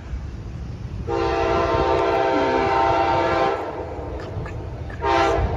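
Amtrak locomotive's multi-chime air horn sounding one long blast starting about a second in, then a short blast near the end. A low rumble from the approaching train runs underneath.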